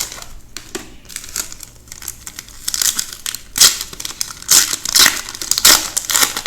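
Wrapping on a pack of trading cards crinkling and tearing as it is opened by hand, in a string of short rustles that grow louder about halfway through.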